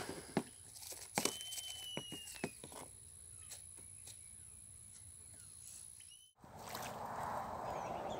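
Light clicks and taps of fingers working in a clear plastic tackle box of bait soil during the first few seconds, over a thin steady high whine. Just past six seconds it cuts to wind rushing on the microphone.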